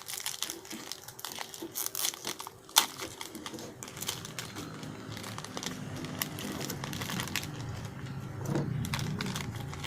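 Plastic snack packaging being torn open and handled, with irregular crinkling and sharp crackles.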